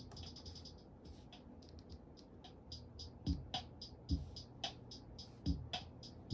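Sparse electronic drum-machine beat: crisp hi-hat ticks, rapid at first and then spaced out. A deep kick drum with a falling pitch comes in about three seconds in and hits four times.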